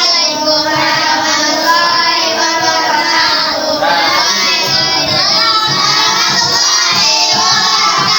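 A class of children singing together loudly, many young voices at once.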